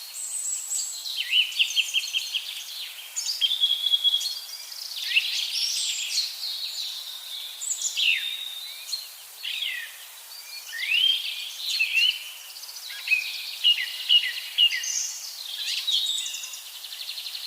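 Songbirds singing: a steady stream of varied chirps, short trills and quick falling whistles.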